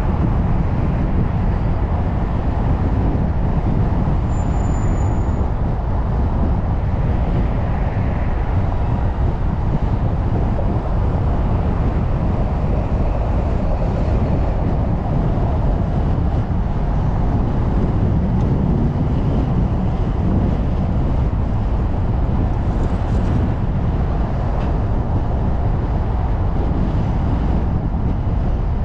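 Steady low rumble of a car driving along a city street: road and tyre noise with traffic around it.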